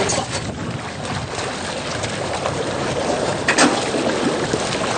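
Boat motor running with wind buffeting the microphone during a flood rescue on the water, and one sharp knock about three and a half seconds in.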